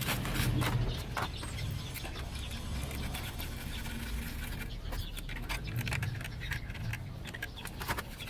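Scattered small clicks, taps and scratches from hand work on small parts, over a low hum.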